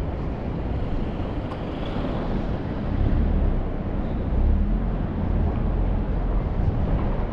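Steady low rumble of a city street, the hum of traffic and passing vehicles, growing somewhat louder about three seconds in.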